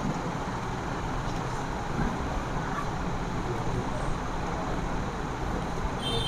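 Steady background noise, an even low rumble with no distinct events.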